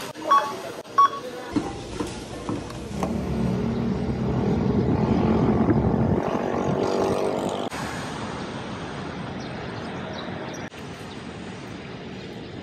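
Two checkout barcode-scanner beeps in the first second, then city street traffic: a passing vehicle's engine rises and fades over steady traffic noise.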